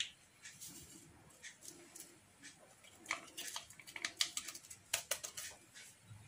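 A small metal spoon clinking and scraping against a stainless steel saucepan of milk. A few light clicks come first, then a quick run of sharp clicks in the second half.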